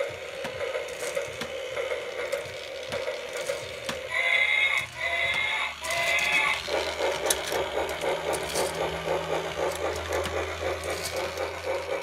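Walking toy T-rex: its motor and plastic gears run with a steady rhythmic clicking rattle. About four seconds in, its sound chip plays three short electronic sounds, one after another.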